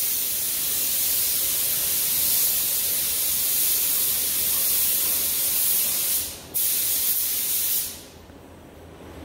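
Gravity-feed paint spray gun hissing as it sprays automotive base coat onto a bumper. The spray breaks off briefly just after six seconds, starts again, and stops near the eight-second mark.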